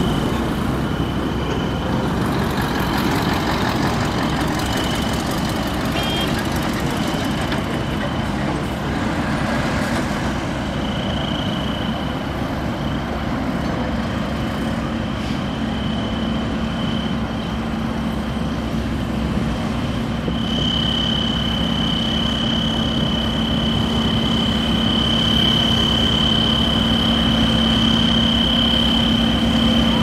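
Diesel engines of heavy road machinery (pneumatic-tyre rollers, a tractor and a dump truck) running steadily as they pass. A high steady whine runs throughout and grows stronger in the second half, and a low engine hum gets louder near the end as a roller draws close.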